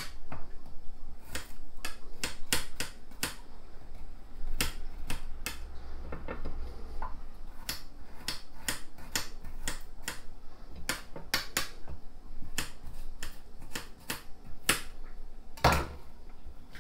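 Kitchen knife chopping garlic cloves directly on a granite countertop: sharp, irregular knocks of the blade on stone, two or three a second, with one louder knock near the end.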